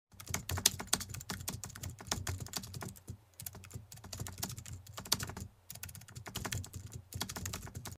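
Rapid, irregular clicking in quick runs with a few short breaks, like keys being typed on a keyboard.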